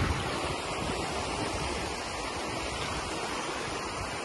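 Steady rushing of turbulent current churning in a concrete-lined aqueduct canal.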